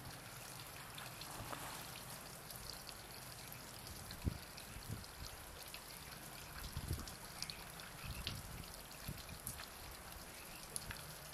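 An African elephant working a dead branch with its trunk over a steady faint hiss: a few light crackles and soft thuds. The sharpest thud comes about four seconds in, as the branch goes over onto the ground.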